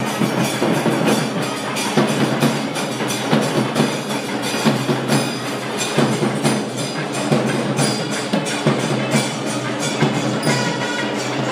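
Processional music led by fast, sharp drum strokes over a steady low drone.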